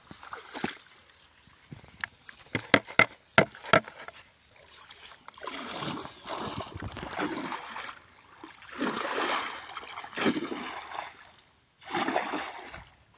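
Muddy canal water sloshing and splashing in several short bursts as a person wades through it, with a quick run of sharp clicks about two to three seconds in.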